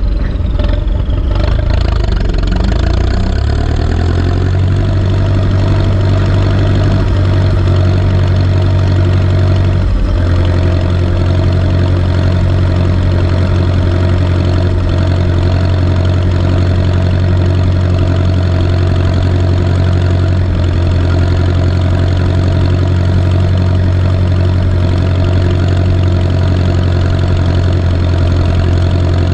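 Turbocharged Ursus C-360 tractor's four-cylinder diesel engine running, picking up revs over the first few seconds and then holding a steady speed, with a short dip about ten seconds in.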